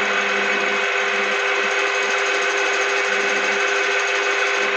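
A small lathe running steadily with a constant whine, turning a piston on a jig while it is cut down at the crown.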